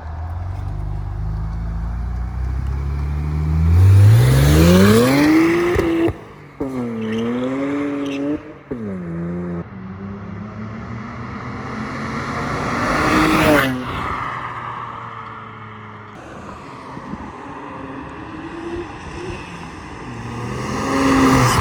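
BMW 335i twin-turbo inline-six running through a VRSF exhaust, revving up and down: the engine note climbs in pitch and falls back several times, the loudest climb about four seconds in.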